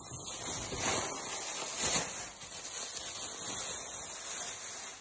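Onion and carrot sizzling in hot oil in a frying pan, a steady hiss with a brief louder flare about two seconds in.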